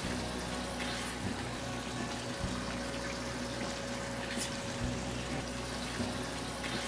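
Water running and trickling in a small aquaponics tank system, steady throughout, with a faint low hum underneath.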